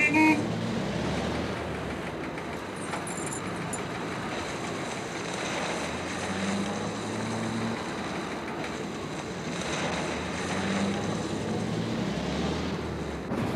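A steam locomotive running as it approaches, an even noisy sound with a low tone that swells and fades several times. A short horn toot sounds right at the start.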